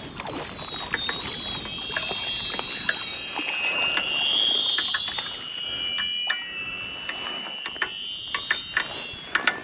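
Fishing reel being cranked while playing a hooked chub, giving a high whine that wavers in pitch with the winding speed, with sharp clicks scattered through it, more of them in the second half.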